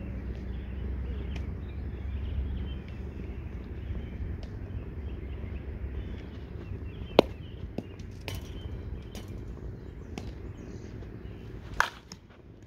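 Softball bat striking pitched slowpitch softballs: two sharp cracks about four and a half seconds apart, the first the louder.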